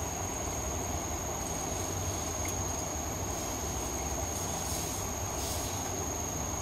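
Steady low hum and hiss of room noise with a thin high-pitched whine; no distinct sound events.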